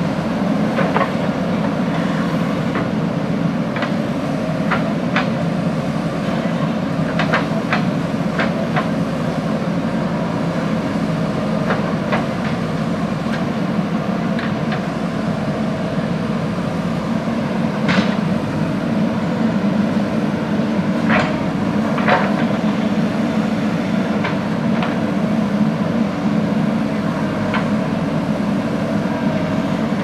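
JCB backhoe loader's diesel engine running steadily under load as the front loader bucket pushes soil, with scattered sharp clanks and knocks, the loudest a little past halfway.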